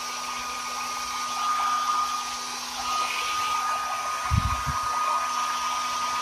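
Philips HP8108/02 compact hair dryer running on its high-speed hot setting: a steady rush of air with a thin, even motor whine. A couple of short low thumps come about four seconds in.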